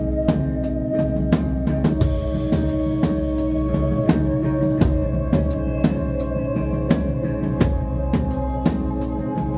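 Background music with a steady drum-kit beat over held low notes.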